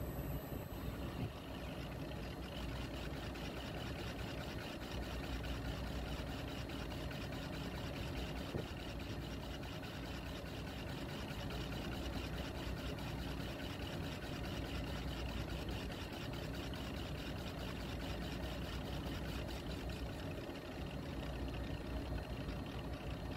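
Chris Marine valve seat machining machine running steadily, its rotating cutter machining the seat face of a Yanmar 8N21L cylinder head valve seat under automatic feed, a continuous mechanical whir over a low drone.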